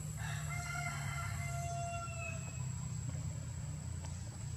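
A rooster crowing once, a long call that rises slightly in pitch at its end, over a steady low rumble and a thin, steady high whine.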